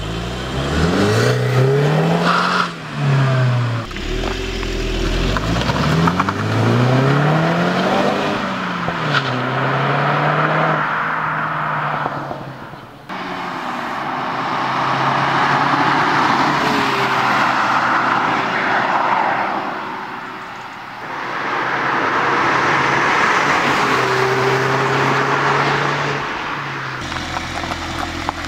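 A 2016 Mini Clubman Cooper S's 2.0-litre turbocharged four-cylinder engine and exhaust revving, its pitch rising and falling several times. The car then passes at speed, its sound swelling and fading twice.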